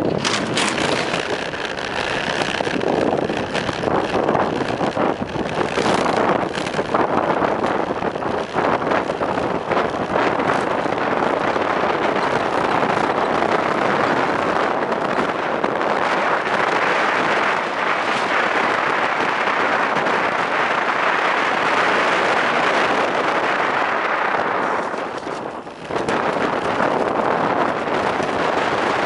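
Wind rushing over the on-board microphone and the wheels of an unpowered downhill cart rumbling and rattling over rough, patched asphalt at speed, with knocks from bumps early on. The noise dips briefly about three-quarters of the way through, then comes back.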